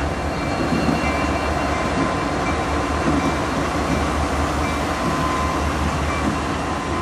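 CSX diesel-electric road locomotives (EMD SD70AC and GE C40-8 units) passing close by at low speed under power, pulling a loaded coal train out from a start. Their engines make a steady, deep rumble, with a faint steady whine on top.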